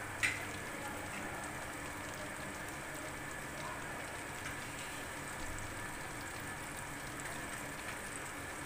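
Flour-coated chicken pieces deep-frying in hot oil: a steady sizzle and crackle of bubbling oil, with one short click just after the start.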